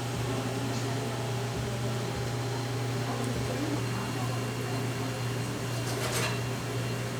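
Steady low machine hum from an appliance or fan, with a few faint clicks and a brief hiss about six seconds in.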